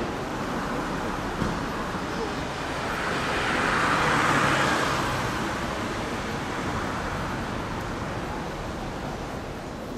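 Street traffic noise from cars going by on a busy city road. A motor scooter passes close about four seconds in, making the loudest swell of the stretch.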